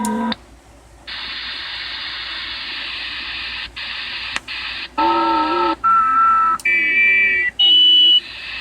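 Strange unidentified signal coming through an amateur radio receiver's speaker. A few seconds of steady hiss give way to a run of short tone chords, each under a second with brief breaks between them, stepping up in pitch.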